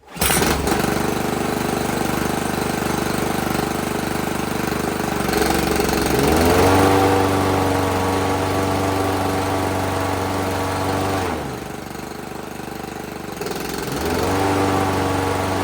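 Toro Recycler 22-inch lawn mower engine starting and running, on test after a new blade-clutch control cable was fitted. Its speed rises about six seconds in, drops back for a few seconds about eleven seconds in, then rises again.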